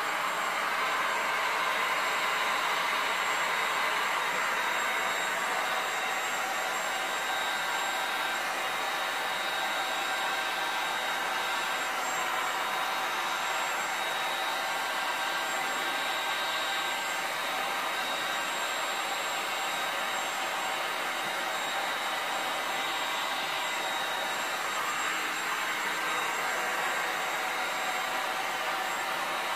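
Handheld heat gun running steadily, its fan blowing hot air across wet epoxy table-top resin: a constant rush of air with a faint high whine over it.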